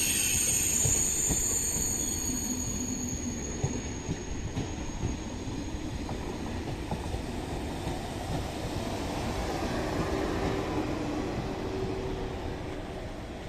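TGV Réseau Duplex high-speed train rolling slowly into the station. A high-pitched wheel squeal fades out in the first few seconds, under a steady low rumble of the wheels with small clicks over the rail joints, growing quieter as the train slows.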